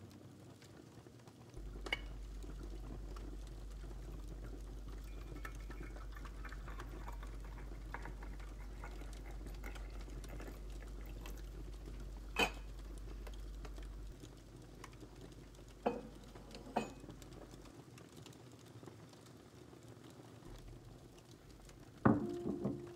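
Quiet household handling sounds over a steady low hum: a few single soft knocks and clinks of small objects on a wooden desk. Near the end comes a louder clatter as a small terracotta dish is set down on the wood, followed by a brief ringing tone.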